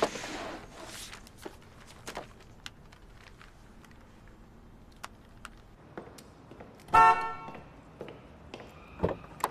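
A car horn sounds one short toot about seven seconds in, echoing in an underground car park; it is the loudest sound here. Before it, a stack of papers is set down on a desk at the start and a Rubik's cube gives small clicks as it is turned; a thud follows near the end.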